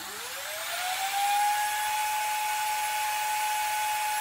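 Nutribullet blender motor grinding dry flaxseeds, with a whine that rises as it spins up over the first second or so and then holds steady at full speed.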